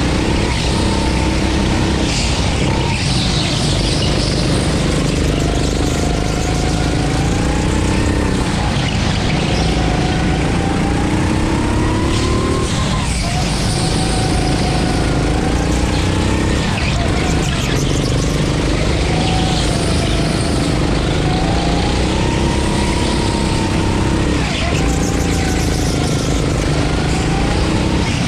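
Go-kart engine at racing speed, its pitch climbing on the straights and dropping sharply several times as the kart slows for corners.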